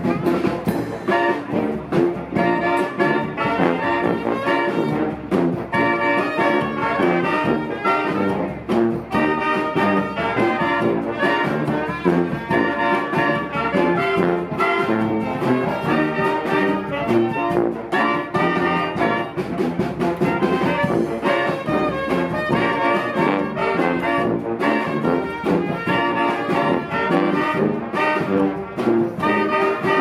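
A street marching band playing live, loud and continuous. A sousaphone carries the bass under clarinet, saxophones and trumpets.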